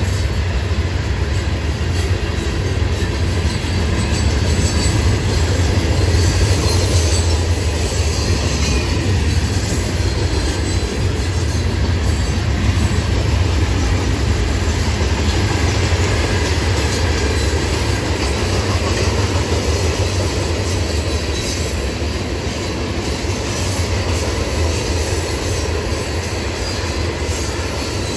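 Freight cars of a Florida East Coast Railway train rolling past: a steady, continuous rumble of steel wheels on the rails.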